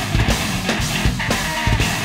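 Rock music with a steady, hard-hitting drum beat of about two kicks a second and distorted guitar.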